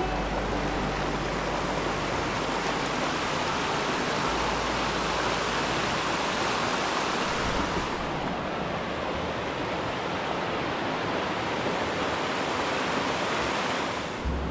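Mountain creek rushing over rocks and small cascades: a steady, full rush of water.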